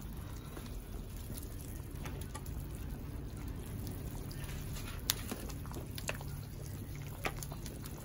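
A plastic ladle serving beef broth and vegetables from a clay pot into a clay bowl: soft liquid splashing and dripping, with a few sharp clicks of ladle on clay in the second half, over a steady low rumble.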